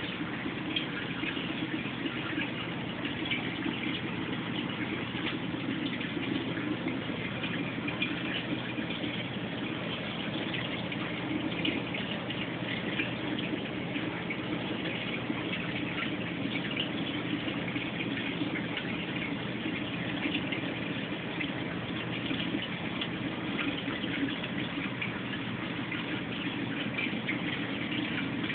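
Water circulating in a 180-gallon reef aquarium: a steady rush and trickle of falling water, with a low hum beneath.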